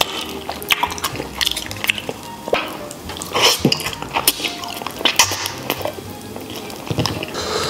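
Wet chewing, sucking and lip-smacking of a person eating braised pig tail, with many quick sharp clicks throughout.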